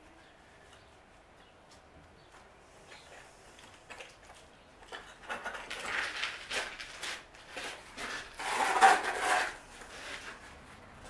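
Scraping and knocking of hand tools and building materials being handled. It is quiet at first and starts about four seconds in, and the loudest sound is a scrape of about a second near the end.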